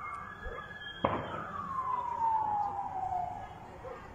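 A single firework bang about a second in, followed by a siren wail sliding steadily down in pitch over about two seconds.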